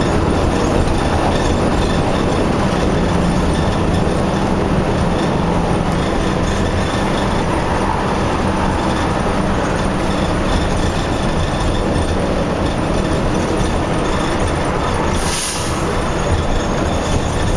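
Highway construction noise: a steady, loud rumble of heavy diesel engines, with a brief hiss about fifteen seconds in.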